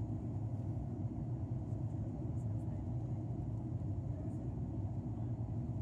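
Cabin noise of an ATR 72 climbing after takeoff: the twin turboprops' steady low drone and rumble, heard from inside the passenger cabin.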